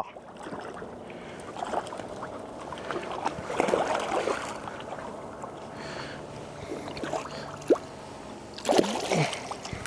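Shallow seawater splashing and sloshing as a hooked sea bass is played and brought to hand at the angler's wading feet, with a sharp knock and a brief falling pitched sound near the end.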